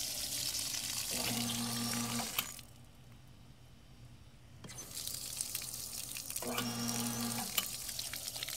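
Water pouring from the drain spigot of a fiberglass well pressure tank, stopping for about two seconds in the middle and then starting again, while the well's jet pump motor hums on for about a second at a time, twice. The pump is short-cycling because the pressure tank is completely waterlogged.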